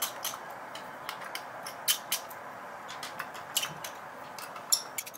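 Irregular small metal clicks and ticks, a few a second, of a screwdriver working the heatsink screws on the back of a Sapphire Nitro Radeon RX 480 graphics card, loosening each a little at a time.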